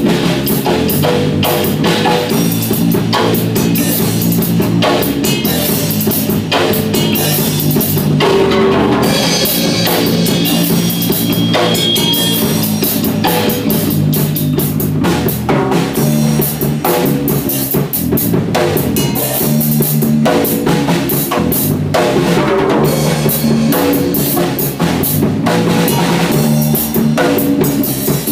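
A live rock band jam: an electric bass guitar playing a riff of low notes over a drum kit keeping a steady beat.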